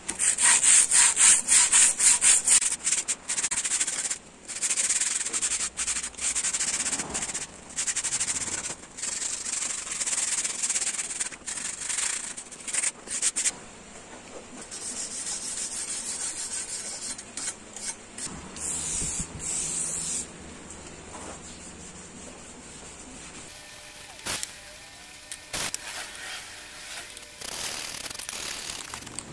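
Hand sanding of a hammer-peened steel machete blade cut from an old circular saw: abrasive rubbed over the dimpled face in quick back-and-forth strokes. The strokes are loudest and most even in the first few seconds, then come in shorter spells with pauses.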